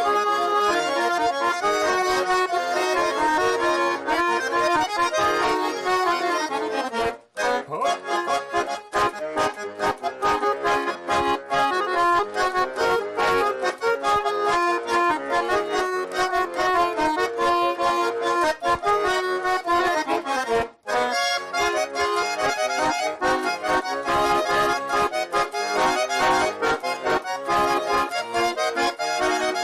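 Russian garmon (button accordion) playing a lively Russian folk tune, all instrumental, with quick rhythmic notes over held chords. The sound breaks off for an instant twice, about 7 and 21 seconds in.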